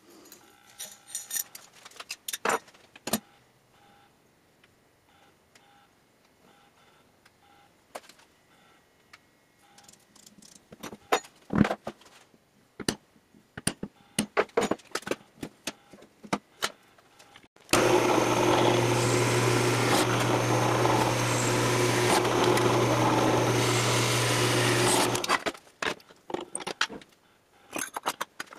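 Light metal clinks and handling knocks, then hammer taps on a center punch marking the steel lid of an ammo can. About two-thirds of the way through, a power tool motor runs steadily for about seven seconds, the loudest sound, then stops, and the clicking resumes.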